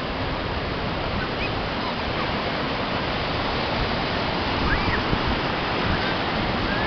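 Ocean surf breaking and washing up a sandy beach: a steady rush of water.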